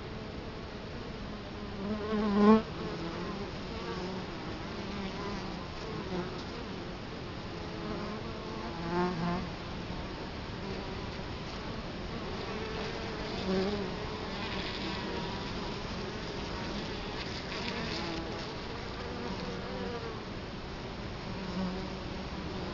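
Italian honey bees buzzing at the hive entrance: a steady hum of many wings, with single bees flying close past the microphone in louder swells that rise and fall in pitch, the loudest about two seconds in and another around nine seconds.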